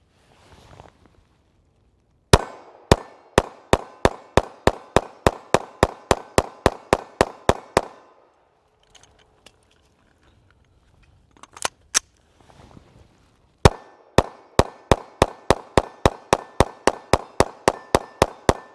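Caracal EF Quick Sight 9mm pistol firing 124-grain American Eagle rounds in two rapid strings of about eighteen shots each, each a full magazine, picking up pace to roughly four shots a second with no stoppage. Between the strings, after a pause, come two sharp metallic clacks.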